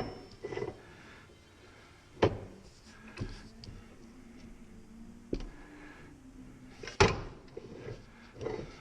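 Scattered sharp metal knocks and clunks from handling a bearing and parts on a bench-top arbor press, the loudest about seven seconds in.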